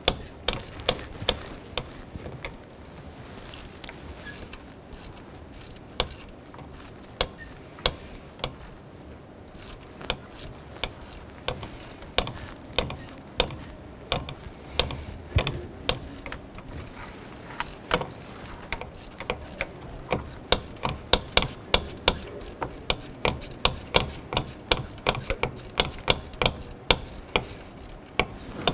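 Hand ratchet clicking as a 10 mm socket on an extension loosens the camshaft position sensor's hold-down bolt. The clicks come in scattered short strokes at first, then in quicker, steadier runs through the second half.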